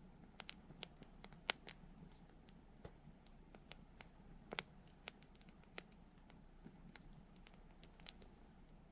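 Wood campfire crackling: irregular sharp pops and snaps, the loudest about one and a half seconds in and again around four and a half seconds, over a faint low hiss of the burning fire.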